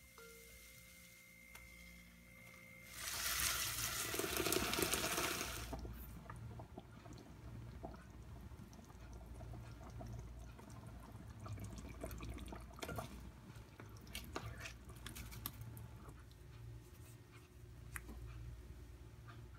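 Kitchen cooking sounds: about three seconds in, a few seconds of liquid pouring into a pot, then scattered light clicks and taps of food being handled.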